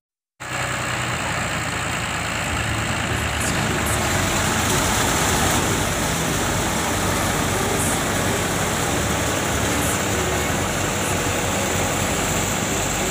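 Al Ghazi 65 hp tractor's diesel engine running steadily under load, belt-driving a threshing machine whose drum adds a loud, even rushing noise. The sound starts abruptly about half a second in.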